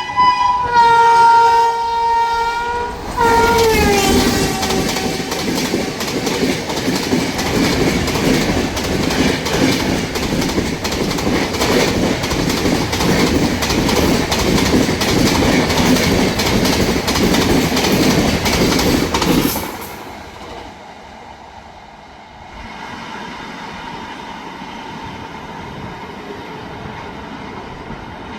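Himgiri Express passing at high speed: the locomotive's horn sounds, dropping in pitch as the engine goes by about three seconds in. Then the coaches' wheels clatter rapidly over the rail joints for about fifteen seconds, until the sound falls away to a quieter steady rumble.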